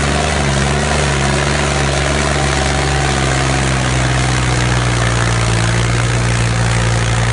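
Tractor diesel engine held at high revs under a heavy pulling load, a loud, steady drone that holds one pitch, with the tractor straining hard enough to rear its front wheels off the ground.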